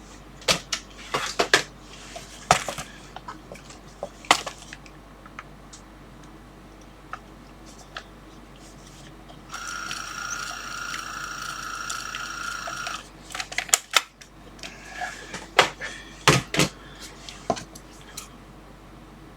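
Label maker being used: quick clicking key presses as the label is typed in, then a steady mechanical whine for about three and a half seconds as the label prints and feeds out, followed by several sharp clicks and snaps as it is cut and handled.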